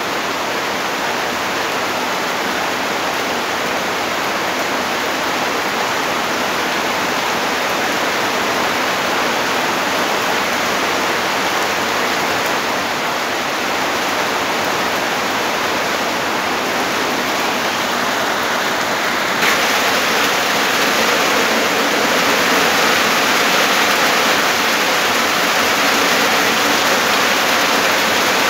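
Rain falling steadily as an even hiss, stepping up to a louder, brighter downpour about two-thirds of the way through.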